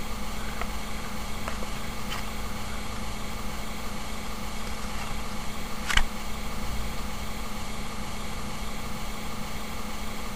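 A steady low hum with hiss, and a single sharp click about six seconds in.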